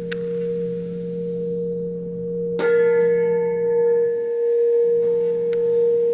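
Tuned metal pipes ringing in long steady tones, a low one and a higher one sounding together. About two and a half seconds in, another is struck, adding a bright ring of overtones that sustains.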